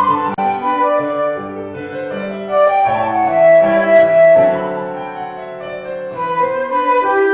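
Flute and piano duet: the flute plays a sustained melody over the piano's chords and bass notes.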